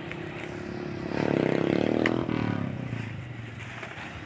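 A motorcycle passing close by on the road: its engine grows loud over about a second, then drops in pitch and fades as it goes away. A short sharp click comes about two seconds in.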